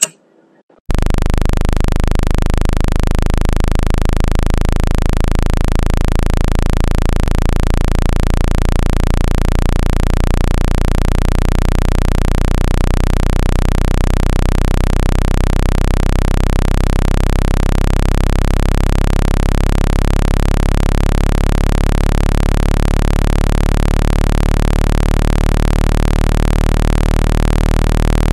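Synthesized low-pitched water-eject tone, a steady electronic hum with a fast wobble, made to vibrate water out of a phone speaker. It starts about a second in and holds unchanged.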